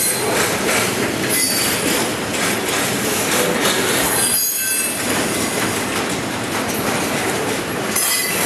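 Intermodal freight cars (truck trailers and containers on flatcars) rolling past at close range: a steady, loud rumble of steel wheels on rail with clicks over the rail joints and thin, high wheel squeals.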